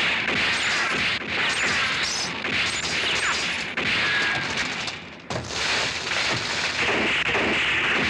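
Film soundtrack gunfire and shattering glass, dense and loud, with a brief drop and then a sudden loud crash about five seconds in.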